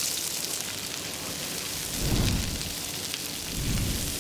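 Food sizzling in a hot pan, a steady hiss, with two low rumbles, one about halfway through and one near the end.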